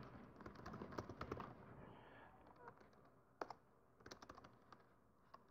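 Faint, scattered keystrokes and clicks on a laptop keyboard: a short run of typing at first, then a few single key taps.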